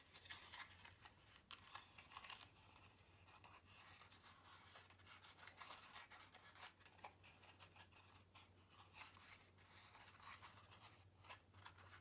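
Faint rustling and crinkling of designer paper being folded and pressed by hand, many small crackles, over a low steady hum.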